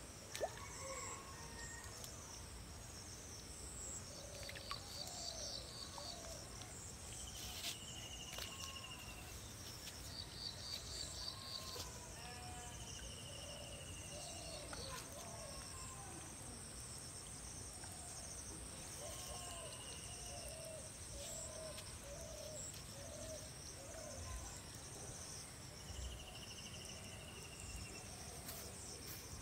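Birds and insects calling: a steady high insect buzz under repeated high chirps, two short rapid trills early on, a longer high whistled note four times, and lower curved chirping calls throughout.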